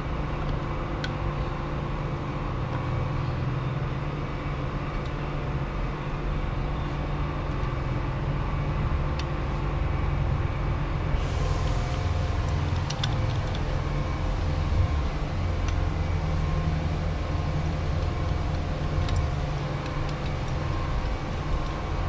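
Steady low background rumble, with a few faint sharp clicks scattered through.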